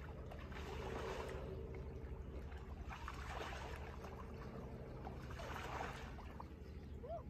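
Lake water sloshing and swirling around a person wading and a mute swan swimming, in swells every couple of seconds. A brief faint call comes near the end.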